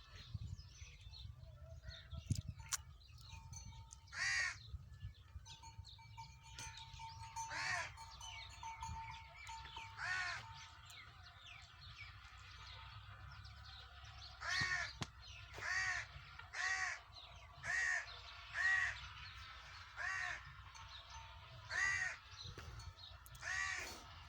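Crows cawing: a dozen or so short harsh caws, spaced out at first and then about one a second in the second half.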